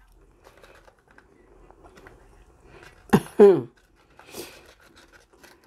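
A woman's short two-part hum with falling pitch, like "mm-hmm", about three seconds in. Around it are only faint, quiet eating and handling noises.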